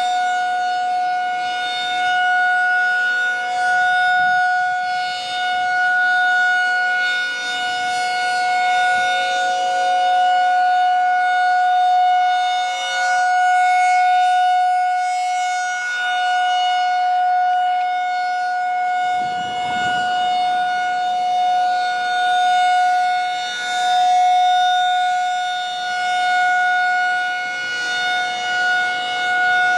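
Federal Signal 2001-SRN rotating electromechanical warning siren sounding a steady single-pitch alert tone during a test. Its loudness swells and fades every few seconds as the horn turns.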